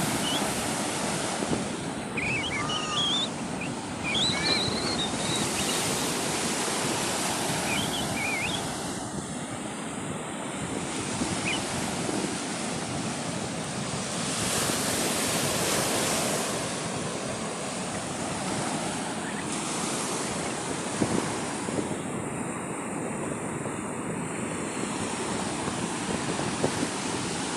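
Sea surf breaking and washing on the shore, a steady rush that swells and eases every few seconds. A few short high chirps sound in the first ten seconds.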